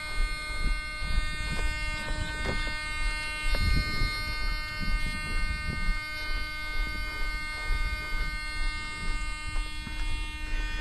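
Steady, high-pitched electric whine of many even tones from a powered-up electric ducted-fan RC jet, with low irregular thuds.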